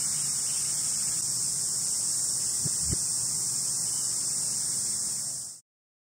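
A steady high-pitched hiss with a faint low hum beneath it and a couple of faint clicks near the middle; it cuts off abruptly near the end.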